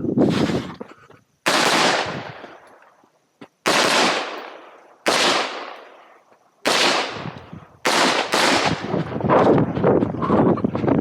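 Rifle shots from a semi-automatic competition rifle fitted with a muzzle brake, fired singly about one to two seconds apart, each with a long fading echo. Near the end the shots come faster.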